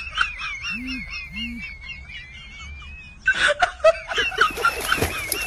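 High-pitched giggling laughter that wavers up and down, breaking into louder, fuller laughter a little after three seconds in.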